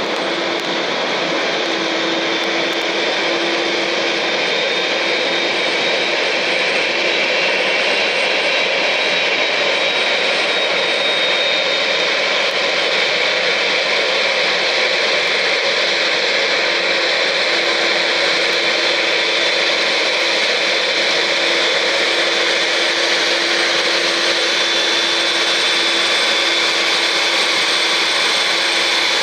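Boeing 787-9 jet engines running at taxi idle, a steady loud rush with a constant whine.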